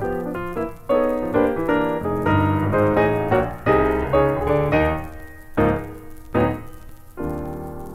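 Solo piano music: a quick run of notes, two loud chords struck about two-thirds through, then a held chord near the end.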